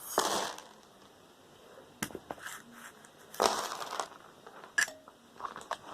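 Loose metal screws rattling and scraping in several short bursts as they are stirred through and sorted with a magnet, the loudest burst right at the start.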